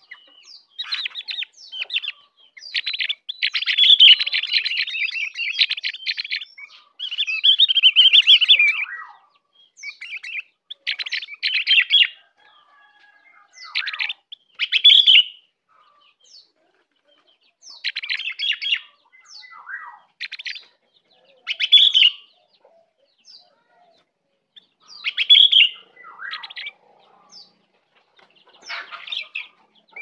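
Caged opior singing: two long runs of fast, high chattering song in the first nine seconds, then shorter phrases every few seconds.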